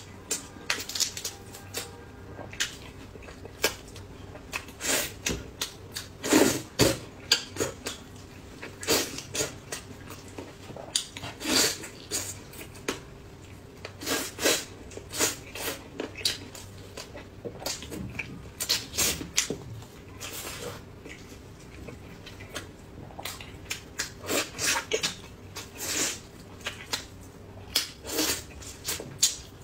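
Close-up eating sounds of a person eating a chicken leg: wet sucking, smacking and chewing as meat is pulled off the bone, in short, irregular sounds.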